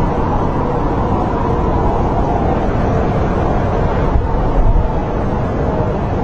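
Snowstorm wind blowing steadily: a deep, continuous rush with faint wavering whistles over it.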